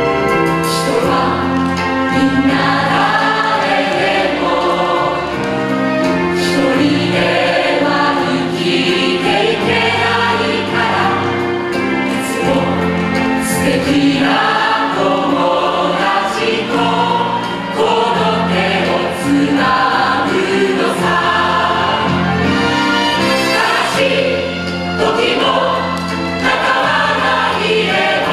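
Musical-theatre cast singing a song together in chorus over instrumental backing with a steady bass line.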